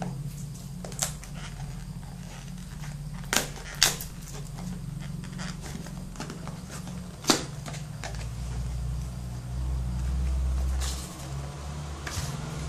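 Cardboard retail box of a MiFi modem being handled and opened: a few sharp clicks and taps of the flaps, the loudest near four seconds in and just past seven seconds, and a low rumble of handling between about eight and eleven seconds, over a steady low hum.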